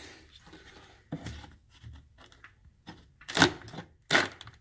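Gloved hand scraping and picking at termite-damaged wood, a few short crackling scrapes with the loudest two near the end.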